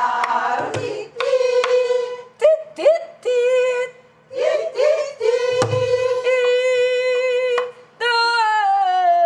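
A woman sings Korean gu-eum, a wordless vocal melody in gutgeori rhythm, on long held notes, while striking a soribuk barrel drum with a stick now and then. The heaviest drum stroke, with a deep thud, comes about five and a half seconds in. Near the end a long note slides slowly downward.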